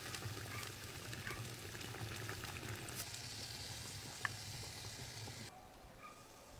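Meat in a thick sauce bubbling and sizzling in a pot while being stirred with a metal skimmer, a steady frying noise. There is a single sharp click about four seconds in, and the sound drops away after about five and a half seconds.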